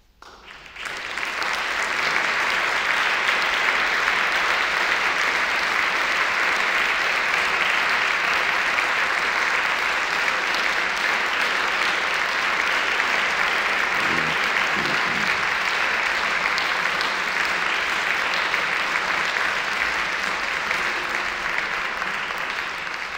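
Audience applauding in a large concert hall. The clapping swells up about a second in, holds steady, and begins to fade near the end.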